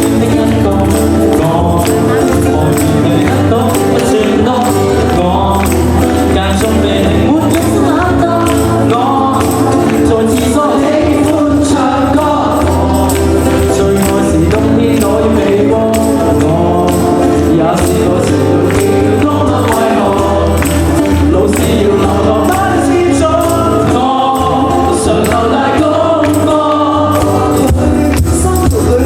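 A live pop-rock band playing a song, with a steady drum and cymbal beat, bass, and a singing voice over the top.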